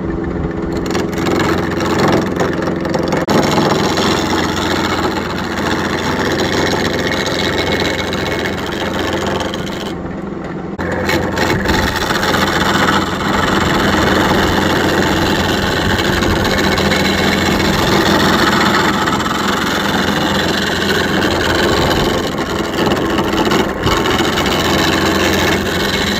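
Wood lathe running steadily while a turning tool cuts the spinning wood, with short breaks in the cutting about 3 and 10 seconds in.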